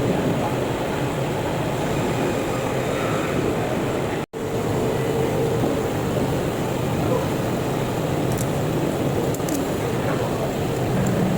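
Steady grinding of a knife blade against an abrasive, with a brief cut to silence about four seconds in.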